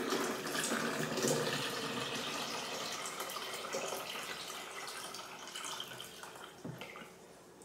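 Water pouring from a glass coffee carafe into a drip coffee maker's reservoir, a steady stream that grows fainter and stops near the end.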